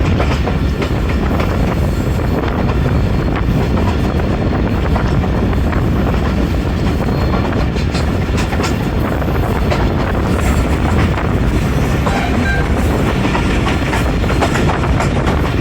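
Pakistan Railway passenger train running along the line, heard from on board: a steady, loud running noise with the wheels clicking over the rail joints.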